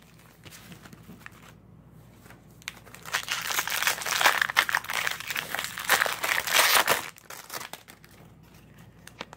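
Foil wrapper of a Topps baseball card pack crinkling as it is torn open and pulled off the cards, loudest for about four seconds in the middle.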